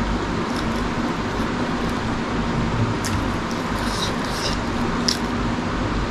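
Eating sounds from a person chewing food by hand, with a few short wet clicks of the mouth in the second half, over a steady loud hiss.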